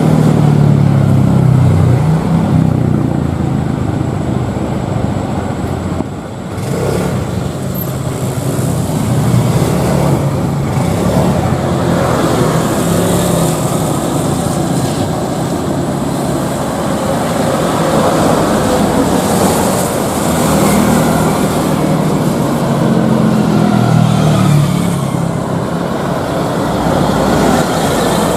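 Airliner jet engine noise: a loud, steady rumble that swells and eases, with a brief dip about six seconds in.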